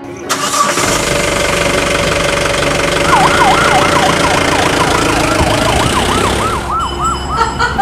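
A police Mahindra Bolero's engine running, and from about three seconds in a police siren yelping in fast up-and-down sweeps that quicken toward the end.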